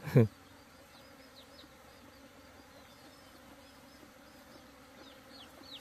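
Honeybees buzzing faintly and steadily around an open hive, with a bird chirping short, hooked, repeated notes above the hum. A brief bump sounds right at the start.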